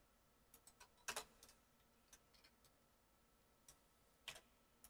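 Faint, scattered clicks of a computer mouse and keyboard keys, a handful in all, the two loudest about a second in and near the end, over near silence.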